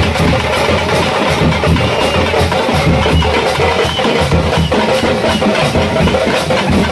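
Loud drumming in a fast, dense, unbroken beat.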